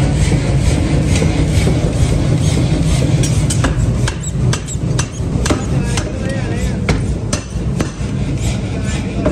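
Forge-shop machinery running with a steady low rumble, then from about three seconds in a run of sharp, irregular metal-on-metal knocks as a glowing hot billet is handled with steel tongs on the die of a forging press.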